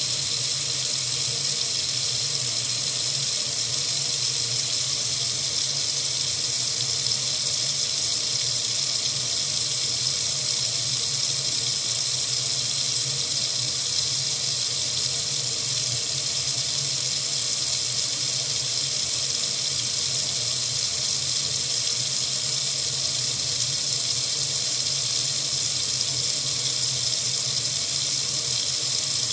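Water running steadily from a faucet into a sink, a constant hiss with no change.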